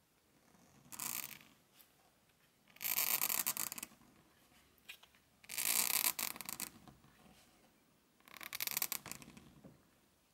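Goose quill scratching across hot-pressed Saunders Waterford paper dusted with gum sandarac as letters are written: four scratchy pen strokes, most about a second long, with quiet between.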